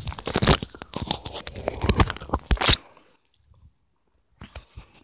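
Handling noise on a phone's microphone: rapid crackling, rubbing and knocks as the phone is moved about. It cuts off abruptly about three seconds in, leaving a second of near silence before faint knocks return.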